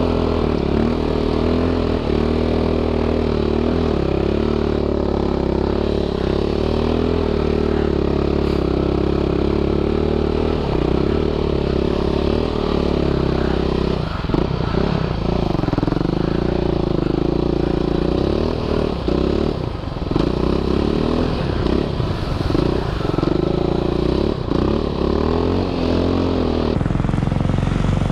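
450 cc quad bike (ATV) engine running under way, its pitch rising and falling with the throttle. From about halfway the throttle is chopped and reopened several times in quick succession before it settles again.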